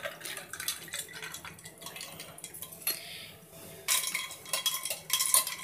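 Water poured over ice cubes in a glass, then a spoon stirring the drink, clinking rapidly against the glass and ice. The clinking gets louder about four seconds in, with a faint ringing from the glass.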